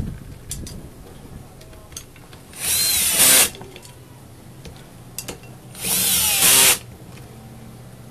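Cordless drill-driver, clutch set to torque 10, driving the housing screws back into a demolition hammer's gear housing: two short whirring runs of under a second each, about three seconds apart, with faint handling clicks between.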